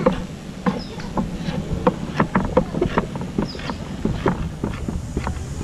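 Long kitchen knife chopping habanero chiles on a wooden cutting board: a run of short, irregular knocks, about three a second, as the blade strikes the board.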